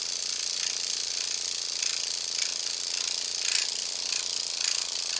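Derminator 2 electric microneedling pen running on its fast needle speed, giving a high mechanical buzz and chatter as it is worked over the skin of the arm. Its rattling grows a little stronger and more pulsed in the second half.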